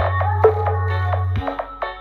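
Electronic dance remix of an Arabic pop song playing loudly for a 15-inch speaker sound test, with no vocals at this point: a deep bass note held for about a second and a half, then cut off, under a synth melody and sharp drum hits.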